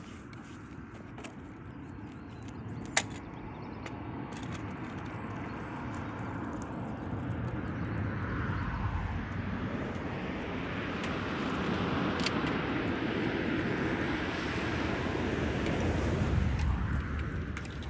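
Engine noise of a passing vehicle, swelling steadily for over ten seconds and loudest near the end, with a single sharp click about three seconds in.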